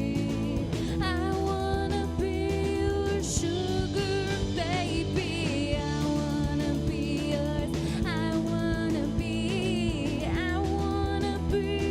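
A pastel-punk band playing a song: sung vocals over drums, bass and guitar.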